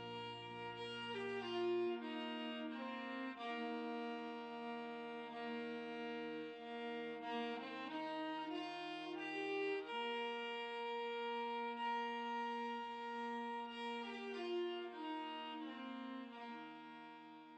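Old-time fiddle music: a slow tune of long held bowed notes, often two strings sounding together, fading out near the end.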